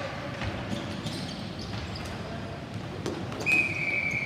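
Ball hockey play: scattered sharp clacks of sticks striking the plastic ball and each other. About three and a half seconds in, a loud high steady tone starts and holds for over a second, the loudest sound here.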